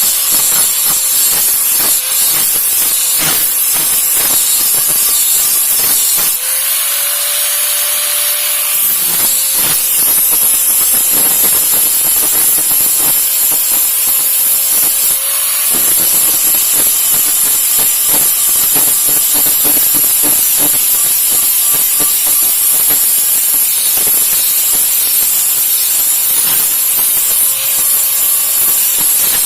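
Steel machete blade being worked with an abrasive tool: a loud, steady grinding hiss of metal being abraded, with a faint underlying tone that rises briefly now and then.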